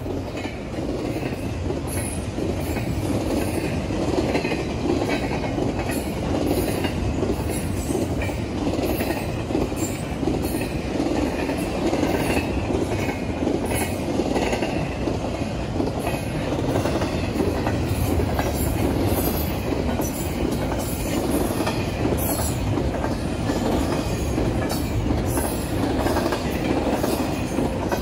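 Union Pacific intermodal freight train passing a grade crossing at speed: a steady roar of steel wheels on rail, with quick clicks and clacks as the wheels cross rail joints.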